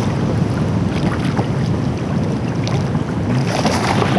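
Wind buffeting the microphone over choppy sea water lapping around a kayak, with a burst of splashing beside the hull near the end.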